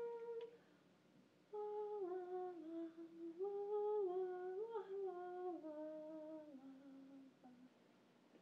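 A woman humming a slow tune: one held note, a short pause, then a phrase that steps gradually downward in pitch and fades out near the end.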